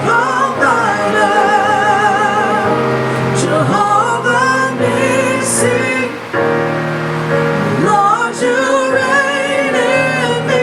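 Live worship music: a female voice singing a slow, held melody with vibrato over sustained keyboard chords.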